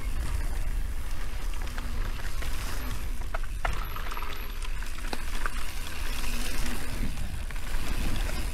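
Mountain bike ride heard on an action camera's microphone: wind buffeting the mic as a steady rumble, with the hiss of tyres on the dirt trail and a few sharp clicks and rattles from the bike.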